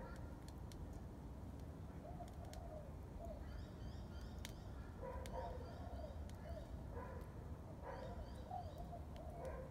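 Birds calling: a lower warbling call comes in three phrases, about two, five and eight seconds in, with quick high chirps from another bird between them. Underneath are a steady low rumble and a few faint ticks.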